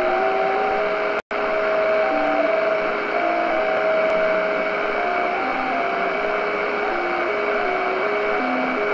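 JT65 digital-mode signals received in SSB on a Tecsun PL-600 shortwave radio: two or more overlapping streams of pure tones, each holding a note and then stepping to another about three times a second, over steady band hiss, with a faint steady whistle higher up. The audio drops out for an instant about a second in.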